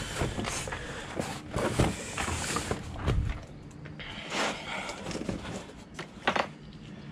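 Irregular knocks, thuds and rustling as boxes and papers are handled and moved about, with a sharper pair of knocks about six seconds in.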